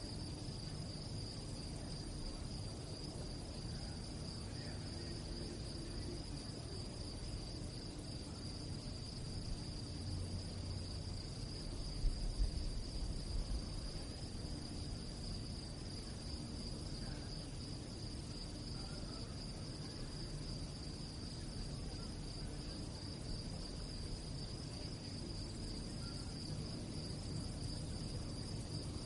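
Crickets singing in one continuous high trill at night, over a low background rumble. A brief low thump about twelve seconds in.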